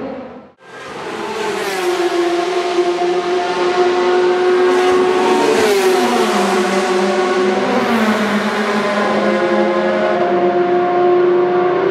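Endurance race car engines running at high revs, several engine notes at once, mostly holding steady with a drop in pitch around the middle. The sound cuts out briefly about half a second in.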